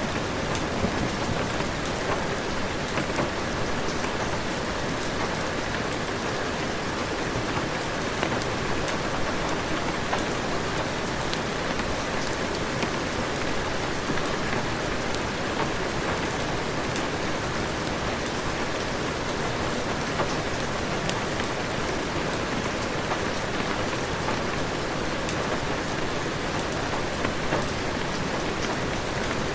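Heavy rain falling steadily in a dense, even hiss, with small sharp drop ticks scattered through it.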